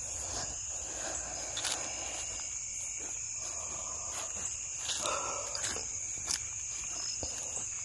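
Insects chorusing in a steady high trill, with soft footsteps on grass.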